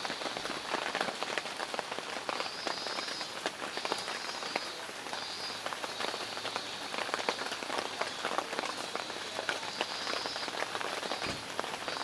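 Heavy typhoon rain pattering on a tent shelter: a steady hiss thick with the ticks of individual drops.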